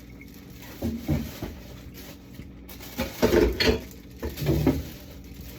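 Jars and food containers knocking and clattering as they are lifted out of a fridge and set down, in a few short bursts, the loudest about three seconds in.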